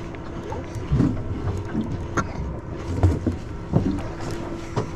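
A small fishing panga on the water: irregular knocks and slaps of water against the hull, wind on the microphone, and a steady low hum underneath.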